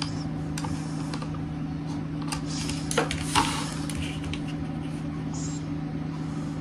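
Steady low hum with a few scattered clicks of a computer mouse.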